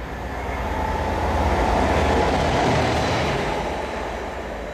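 Diesel locomotive passing through at speed without stopping. Its engine and wheel noise swells to a peak about two to three seconds in, then fades as it goes away.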